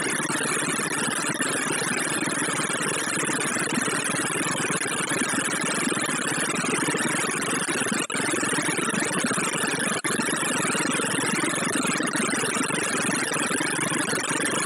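ArrayV sorting visualizer's audio: a very rapid stream of short synthesized tones, each pitched to the value of the array element being compared or written, blurring into a steady buzzing wash as Safe Ass Sort works through 512 elements. It drops out for an instant twice, about eight and ten seconds in.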